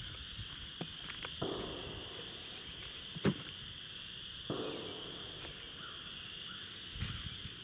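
Steady high buzzing of an insect chorus, with scattered clicks, a sharp knock about three seconds in, and two short noisy swishes that fade out, about one and a half and four and a half seconds in.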